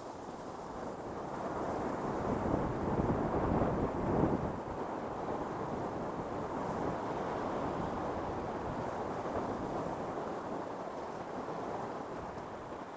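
Ocean surf on a beach: a wave swells and breaks about three to four seconds in, then a steady wash of foam slowly eases off. Wind buffets the microphone.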